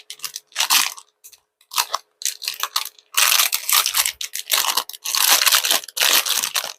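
Plastic packaging crinkling and rustling in quick crackles as it is handled and opened to get a silicone mold out, sparse at first and much busier about halfway through.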